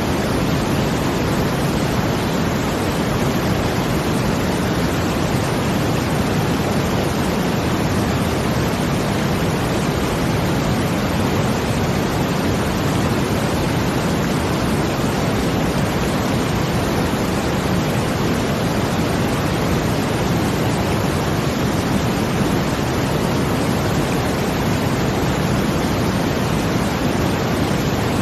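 Brown noise blended with the sound of water: a steady, even noise weighted toward the low end, without breaks or swells.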